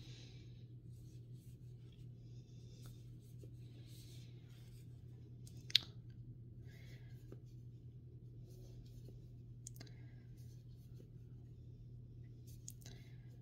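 Faint soft rustling and small clicks of chunky fleece yarn being worked with a Tunisian crochet hook, loops pulled up onto the hook, with one sharper click about six seconds in. A steady low hum runs underneath.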